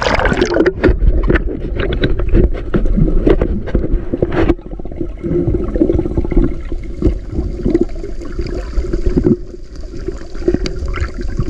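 Underwater noise of water rushing and gurgling around the camera as a bamboo fish trap is hauled up, with many sharp clicks and knocks in the first few seconds, then a calmer wash.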